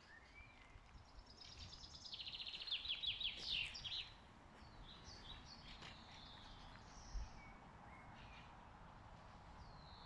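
Woodland songbirds singing. One bird gives a fast run of repeated notes, each sliding downward, from about one to four seconds in, and shorter high calls follow.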